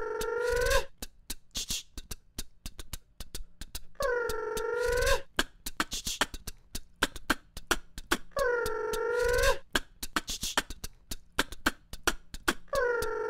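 Vocal beatbox loop layered on a loop station: rapid mouth clicks, a low kick thump and a hissing snare, with a held, slightly bending sung note about a second long that comes back about every four seconds.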